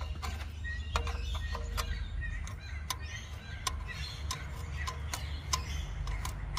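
Steel spanner clicking and scraping against the fuel line union on a tractor's mechanical fuel lift pump: a series of sharp metal clicks about a second apart, over a steady low hum.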